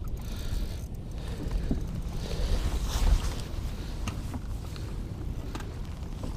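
Wind rumbling on the microphone, with choppy water lapping and splashing at the side of a small fishing boat. The sound rises briefly about three seconds in.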